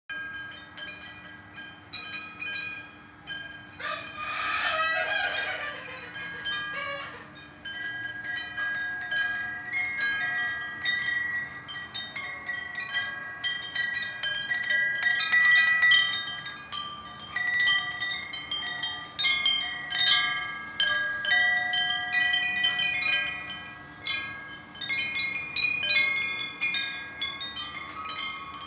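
Aluminium tube wind chime ringing, its striker hitting the tubes again and again so that clear metallic tones overlap and fade. A brief noisy sound joins in about four seconds in.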